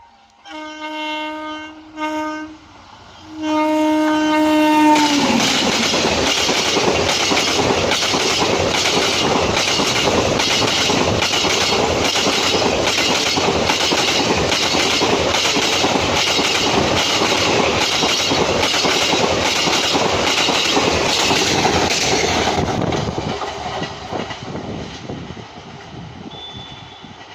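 WAG-9 electric locomotive horn sounding two blasts, the second bending down in pitch at its end. The train then passes: the locomotive and coaches rush by with a fast, even clickety-clack of wheels over rail joints, and the sound fades away near the end.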